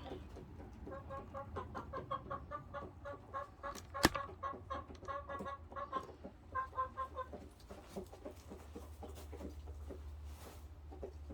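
Laying hens clucking, a quick run of short repeated clucks through most of the stretch, with a single sharp click about four seconds in.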